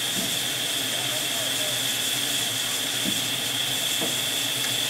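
Narrow-gauge steam locomotive letting off steam in a steady, even hiss.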